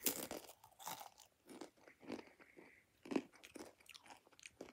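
Mouth sounds of a rolled corn tortilla chip (Takis) being bitten and chewed: a sharp bite, then irregular crunches as it is chewed, with a louder crunch about three seconds in.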